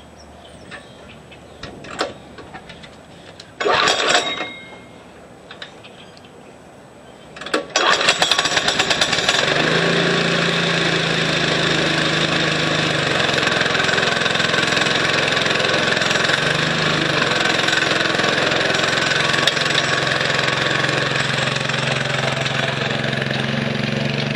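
Small scooter engine being pull-started: a first pull about four seconds in does not catch, and a second pull just before eight seconds starts it. It then runs steadily at a fast idle, which the owner puts down to the carburetor binding just short of fully closed.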